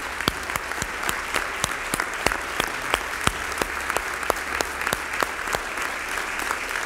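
Audience applauding, a dense patter of many hands, with a run of louder, sharper claps close to the microphone at about three a second.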